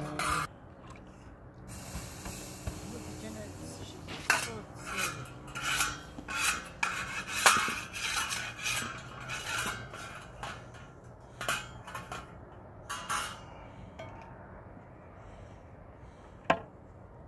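Metal scraper rasping across a hot domed iron flatbread griddle in a run of quick, uneven strokes, scraping it clean before the next bread is poured. Near the end comes one sharp metallic clank.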